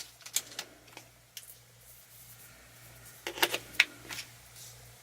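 Light clicks and taps of a removable smartphone battery and plastic phone parts being handled, with a cluster of sharper clicks about three to four seconds in.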